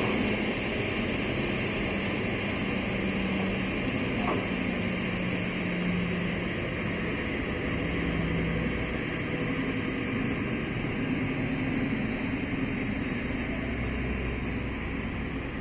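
Steady machine running noise from a woodworking double mitre saw: an even hiss with a low, slightly wavering hum, and one small click about four seconds in.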